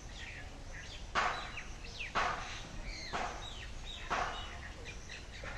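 A metal rod scraping and digging packed clay out of a hole in an earthen stove, one stroke about every second. Small birds chirp in the background.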